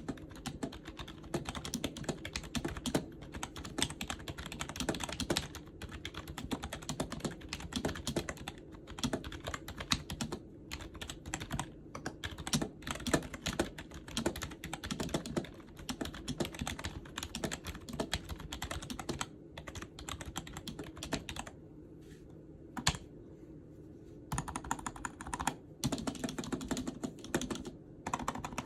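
Typing on a Snpurdiri 60% compact gaming keyboard: a quick, irregular clatter of keystrokes. About three-quarters of the way through, it thins to a few single key clicks for a couple of seconds, then the typing picks up again.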